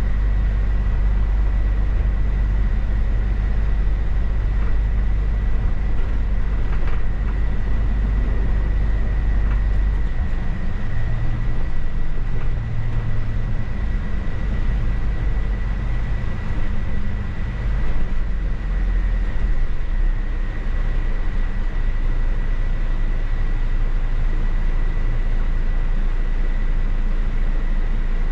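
Mercedes-Benz city bus driving, heard from the driver's cab: a steady low rumble of engine and road noise that changes pitch about ten seconds in as the bus's speed changes. A thin, steady high whine runs over it.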